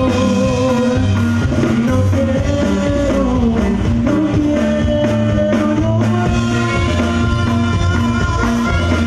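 Live Mexican grupo music, mostly instrumental: accordion and saxophone carrying the melody over acoustic guitar, electric bass and a drum kit keeping a steady dance beat.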